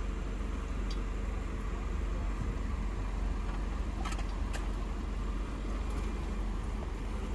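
Land Rover Defender 90 (L663) engine running at crawling speed as the vehicle works over a rock ledge: a steady low rumble with a few faint clicks.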